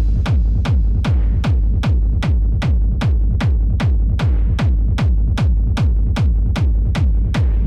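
Hard techno playing: a deep kick drum that drops in pitch on every beat at a fast, steady tempo, about two and a third beats a second, with a sharp click on each beat and little else in the high end.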